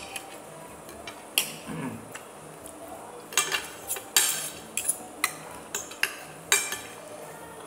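Metal fork and steak knife clinking and scraping against a ceramic dinner plate as food is cut, a string of sharp clinks that comes thickest in the second half.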